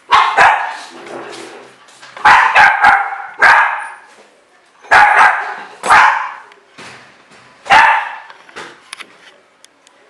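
A dog barking loudly and repeatedly, in short clusters of one to three barks spread across several seconds.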